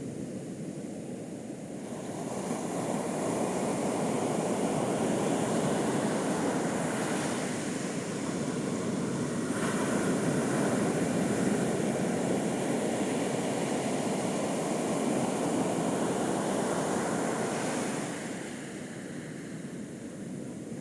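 Sea waves breaking on a beach: a steady wash of surf that swells about two seconds in and falls back near the end.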